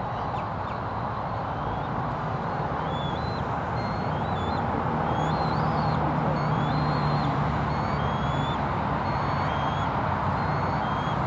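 Small birds singing and calling in short whistled notes over a steady low rumble of distant traffic, with a low hum swelling for a couple of seconds in the middle.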